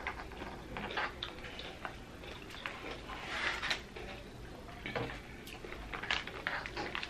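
Crinkling of a plastic pouch of pickled radish as it is handled and laid on a table, with many small clicks and taps throughout and a longer rustle about three seconds in.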